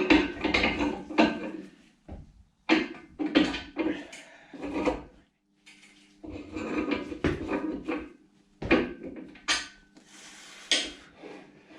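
Metal tools and engine parts knocking and clinking together in repeated irregular bursts as an engine is worked on by hand, with a faint steady hum starting about halfway through.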